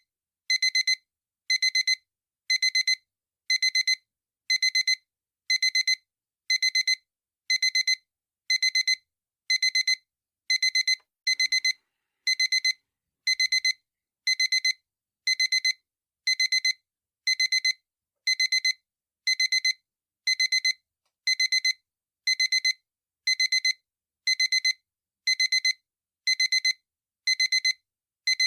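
Digital alarm clock beeping: a high, piercing electronic beep in quick clusters repeating about once a second, steady and unchanging.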